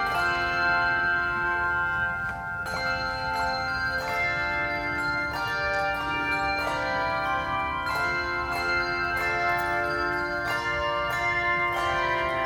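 Handbells played as music, several struck together or in quick succession, each note ringing on and overlapping the next.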